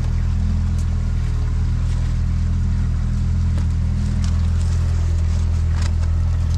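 Boat engine running steadily, a low even hum, with a few faint light clicks on top of it.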